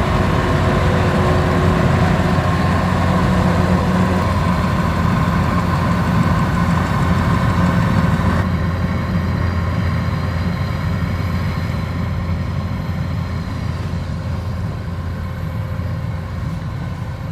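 Kubota DC-93 rice combine harvester's diesel engine running steadily under load as it works. About halfway through, the sound suddenly turns duller and then slowly grows a little quieter.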